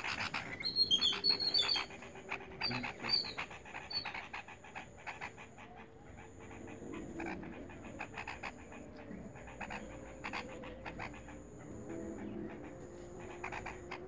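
Nestling birds in the nest giving short, high chirps in the first few seconds, followed by a run of quick clicks and rasps. A thin, high, steady whine comes and goes in short stretches behind them.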